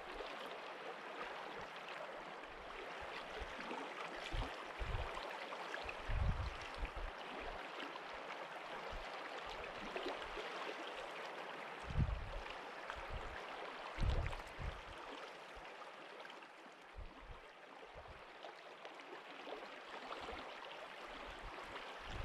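Steady rushing of river water, with occasional gusts of wind thumping on the microphone.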